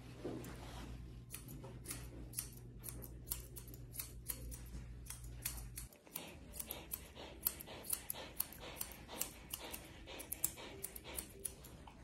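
Grooming scissors snipping through a Samoyed's thick coat: a string of quick, sharp snips, a few each second, over a low steady hum that stops about halfway through.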